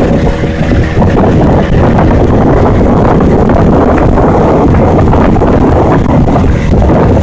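Boat motor running under way, nearly buried by heavy wind buffeting on the microphone and the rush of the hull through the water.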